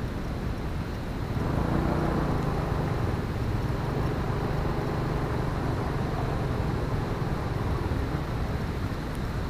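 A vehicle's engine running steadily on the move, with wind and road noise on the microphone; it gets a little louder about a second and a half in.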